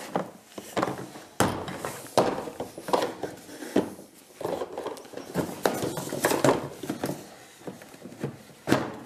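Irregular knocks, clicks and scraping of hard plastic as the steering rod is pushed through the body of a BIG Bobby-Car Next ride-on toy and worked into its axle, with a few sharper knocks as the plastic body is handled and set down.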